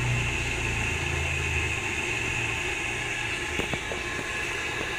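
Scarlett cordless electric jug kettle heating a small amount of water, a steady rushing hiss as it warms toward the boil, with a few faint ticks in the second half.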